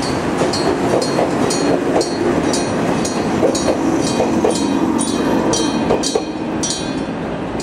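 JR 189-series electric train rolling past a platform, its wheels clattering over the rail joints. The clatter eases about six seconds in as the last car goes by. Throughout, a high ding repeats about twice a second.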